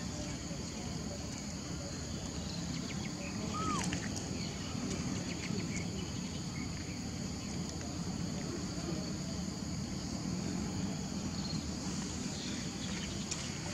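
Steady, high-pitched chorus of insects over a low background rumble, with one short chirp about four seconds in.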